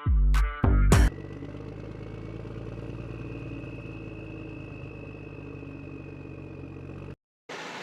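Music with a beat for about the first second, then a radio-controlled toy construction vehicle's electric motor and gears whirring steadily with a thin high whine, cutting off suddenly near the end.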